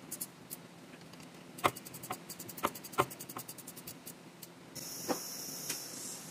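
Ratchet wrench clicking in quick runs as bolts on a differential housing are turned, with several sharp metal knocks. A steady high hiss starts near the end.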